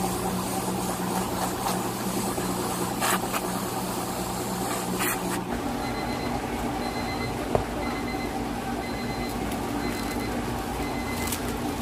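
Steady electrical hum of kitchen appliances, whose pitch shifts abruptly about halfway through. In the second half a faint high beep repeats at short, even intervals.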